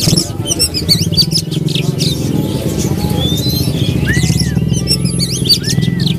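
Many caged songbirds chirping and whistling over one another, with a few repeated rise-and-fall whistles about four and five seconds in, over a steady low background rumble.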